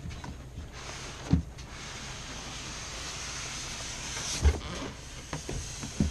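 Packaging being handled: a long scraping rub of packing sliding against the cardboard box, with a few knocks, the loudest about four and a half seconds in.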